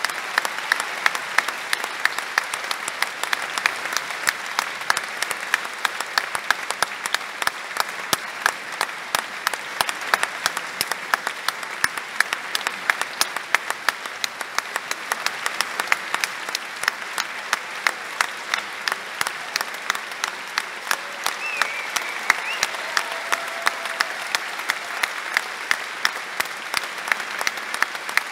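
Theatre audience applauding steadily at a ballet curtain call, a dense sustained wash of clapping. Sharp individual claps close by stand out, about two or three a second.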